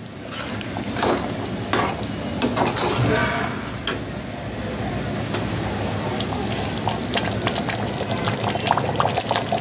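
A steel ladle stirs thick simmering curry in a pressure cooker pot, scraping through the gravy and clinking against the pot's sides, with the curry bubbling steadily underneath.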